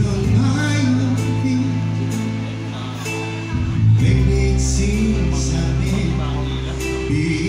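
Live band playing a song: sustained guitar and bass chords with a singing voice, with a short break in the chords about halfway through.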